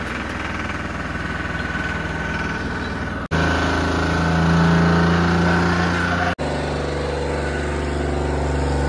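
Diesel tractor engine running steadily, in three short clips joined by abrupt cuts; the middle clip is the loudest.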